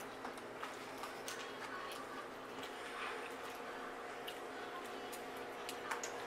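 Quiet sounds of people eating instant ramen noodles: soft slurps and chewing, with scattered small clicks of forks against the bowls.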